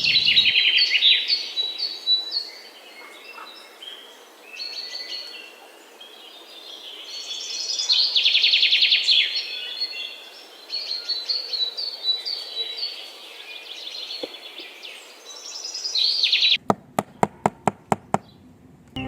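Birds chirping and trilling, with rapid trills swelling loudest at the start and again about halfway through. Near the end, a quick run of about eight sharp clicks.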